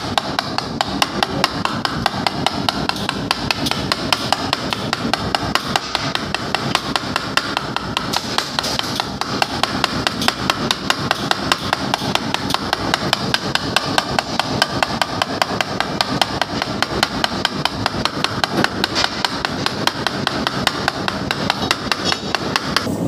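Metal fork beating egg whites to a froth in a ceramic plate: rapid, steady clicking of the tines against the plate.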